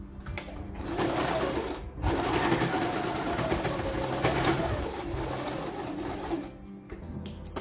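Electric domestic sewing machine running, its needle stitching through folded cotton fabric in a fast, even run. It starts just after the beginning, pauses briefly about two seconds in, then runs on and stops a little before the end.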